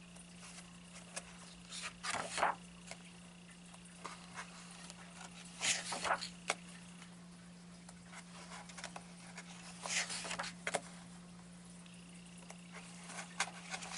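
Pages of a paperback coloring book turned by hand, a papery swish and flap three times, about every four seconds, with small rustles of fingers on paper between. A faint steady electrical hum lies underneath.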